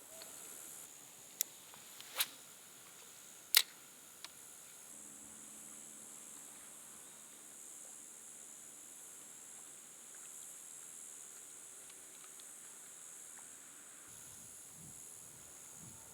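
Four short, sharp clicks or taps in the first few seconds, the loudest about three and a half seconds in, over a faint steady high hiss.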